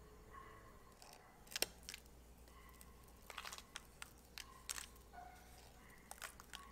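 Light ticks and crackles of rolled oats being sprinkled by hand from a ceramic bowl onto dough and parchment paper, coming in small clusters, with one sharper click about one and a half seconds in.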